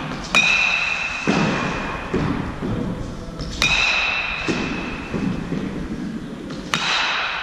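Baseball bat striking tossed balls in batting practice: three sharp hits about three seconds apart, each a ringing ping, with a softer thud following each hit.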